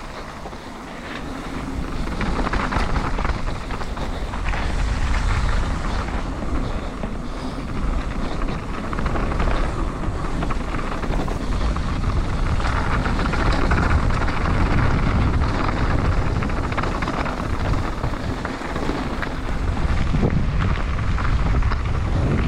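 Wind buffeting the microphone as a mountain bike rides down a dirt bike-park trail, with tyre noise and short rattles over bumps.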